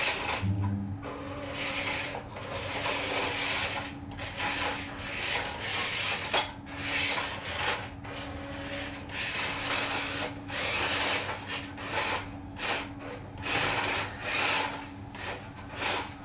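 Small electric RC dump truck driving in short spurts, its motor and gearbox giving a raspy whirring grind that starts and stops again and again with the throttle. A steady low hum runs underneath.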